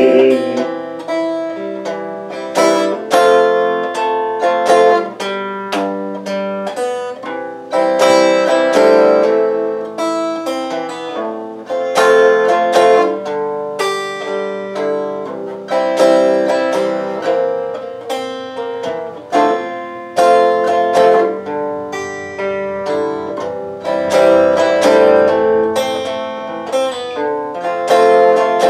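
Acoustic guitar played solo, picked and strummed with a sharp attack on each chord, as an instrumental interlude within a folk song.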